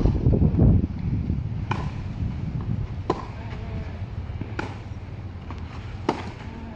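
Tennis ball struck by rackets in a rally, four sharp pops about a second and a half apart. A low rumble on the microphone fills the first second.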